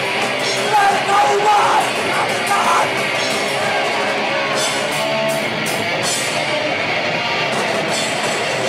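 Punk band playing live: distorted electric guitar and drums, with shouted vocals for the first two seconds or so, after which the guitar and drums carry on without singing.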